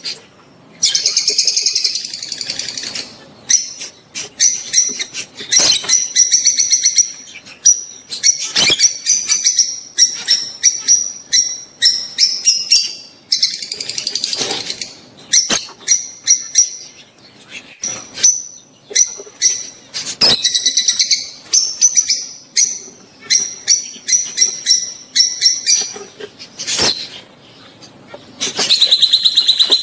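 Rosy-faced and Fischer's lovebirds chattering in shrill, high-pitched chirps, bursts of rapid calls one after another with short breaks between them; mating calls of the kind used to stimulate lovebirds to breed.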